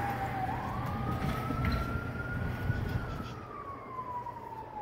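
Emergency vehicle siren in a slow wail. Its pitch dips near the start, climbs for about two seconds, then slides back down.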